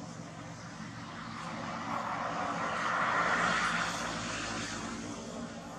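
Rushing engine noise of a passing motor vehicle or aircraft, swelling to a peak about three seconds in and then fading.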